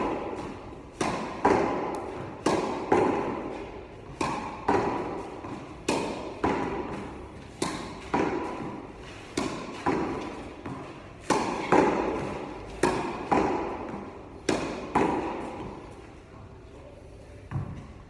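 Tennis ball hit with a racket against a practice wall, with two-handed backhands: a steady rally of sharp hits, mostly in quick pairs every second and a half to two seconds, each ringing on in a large echoing hall. The hits stop about two seconds before the end.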